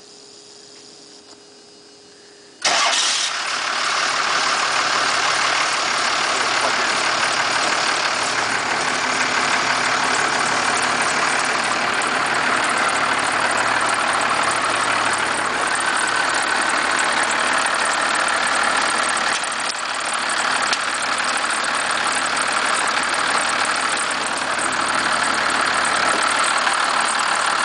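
First-generation Cummins 12-valve diesel, a 5.9-litre inline-six, cold-starting at about −10 degrees: a couple of seconds of near quiet, then the engine catches suddenly about two and a half seconds in and settles into a loud, steady idle. Its running carries the weirdest knock/rattle, which the owner cannot place.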